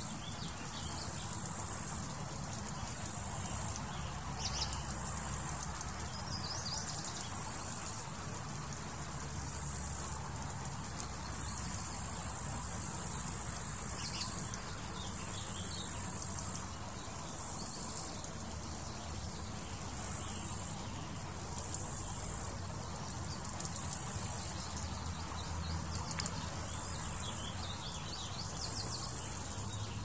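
Male cicadas singing: a high, shrill buzz in pulses about a second long, repeating every one to two seconds, with a longer unbroken stretch of about three seconds near the middle.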